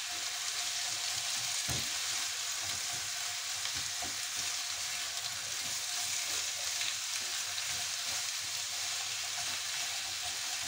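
Sliced red onions sizzling steadily in hot oil and sugar in a frying pan, stirred with a spatula that gives soft scrapes and knocks against the pan.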